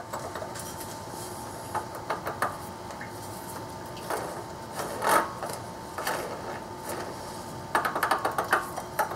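Water pump pulley on a 5.7L Hemi being rocked back and forth by hand, giving short clusters of light clicks and clunks from its loose, crunchy bearing, which is worn out. A faint steady hum runs underneath.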